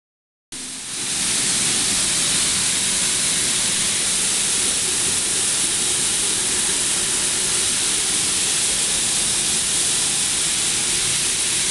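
Small fish-feed pellets pouring in a steady stream off a dryer outlet onto a stainless-steel hopper, a dense even hiss like falling grit, over the low hum of the running machinery. It begins abruptly about half a second in.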